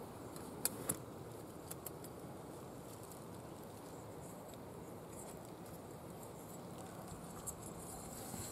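Cloth bags rustling as they are handled, with a few light clicks and taps, a sharper pair about a second in, and a crinkly rustle near the end.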